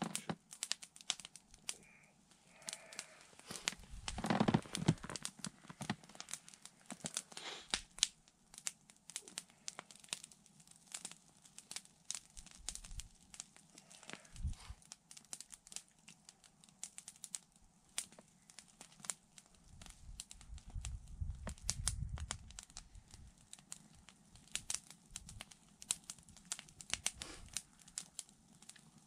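Small campfire of dry twigs crackling with irregular sharp snaps as salo (pork fat) roasts over it on sticks. A louder low rustle comes about four seconds in and again around twenty seconds.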